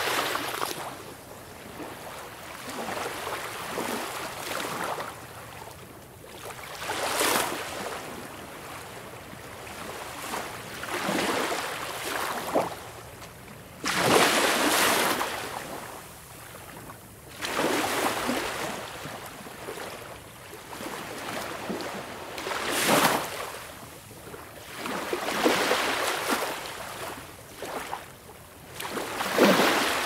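Sea waves washing in and drawing back in irregular surges every few seconds over a steady hiss of water.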